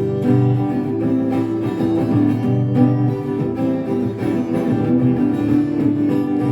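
Live acoustic guitar strummed in an instrumental passage between verses of a folk song, with no vocals.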